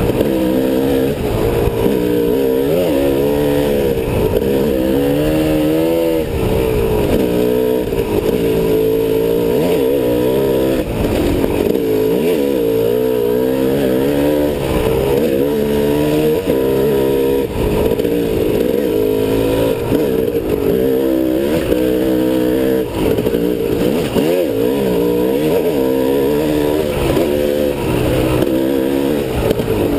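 Engine of an off-road vehicle being ridden, its pitch rising and falling constantly with the throttle, over a steady rush of wind and rumble.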